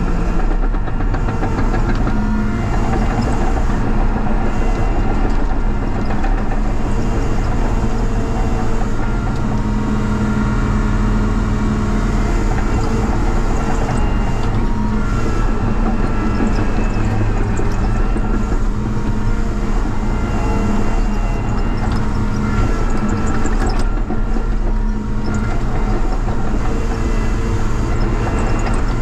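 Cat 953C track loader's six-cylinder diesel engine running steadily under work, with a few metallic clanks.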